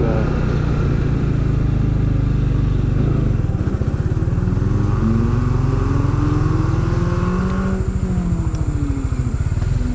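Motorcycle engine running on the road, its pitch climbing steadily from about three seconds in as it speeds up, then falling away near the end as it slows.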